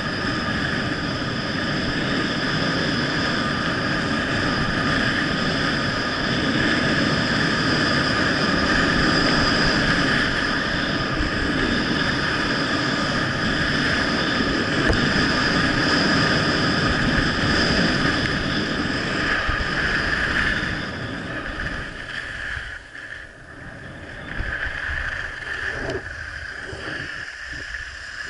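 Wind rushing over an action camera's microphone during a fast downhill ski run, mixed with the hiss of skis on packed snow. About three quarters of the way through the rushing drops and turns uneven.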